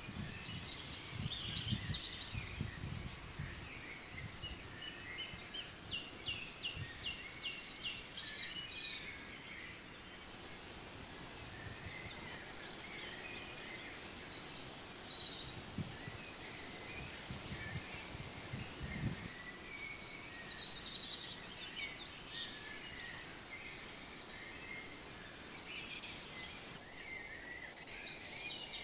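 Outdoor ambience of small birds singing and calling, with a quick trill about six seconds in, over bursts of low rustling near the start and again past the middle.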